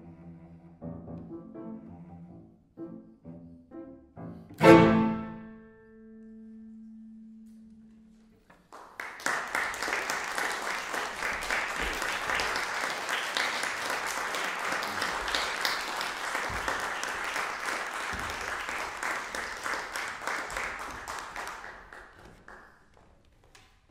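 Cello and piano close a piece: a few notes, then a loud final chord about five seconds in that rings on for a few seconds. Applause starts after a short pause, runs steadily for about thirteen seconds and dies away near the end.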